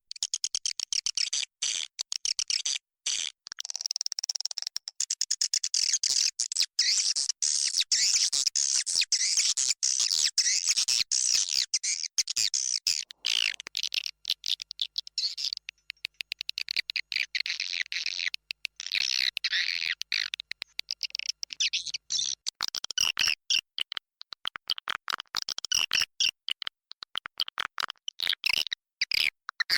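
Edible-nest swiftlets chattering inside a swiftlet house: a dense, unbroken stream of rapid high clicks and buzzy chirps from many birds. This is a recorded swiftlet call track of the kind played to lure swiftlets into a nesting house.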